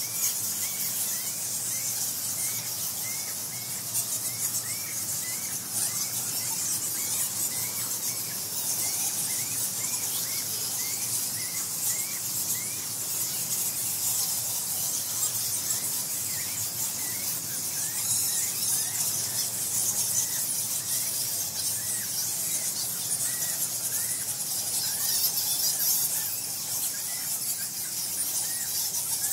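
A large bat colony roosting in a cave squeaks and chatters constantly in dense, high-pitched squeals. Over it, a run of short chirps repeats about twice a second, pausing briefly in the middle.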